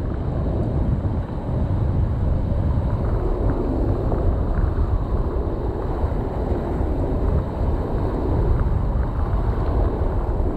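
Steady wind rumble on the microphone, with a few faint ticks.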